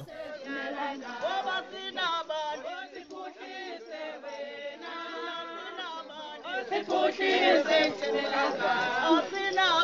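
A group of voices singing unaccompanied in a choir-like chant, getting louder in the last few seconds.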